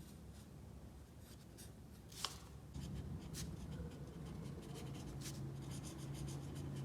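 Faint scratching and light clicks of small handwork at a workbench, with one sharper click a little over two seconds in. A low steady hum comes in just before three seconds.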